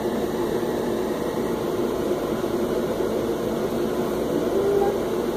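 Steady hiss of rain falling during a storm.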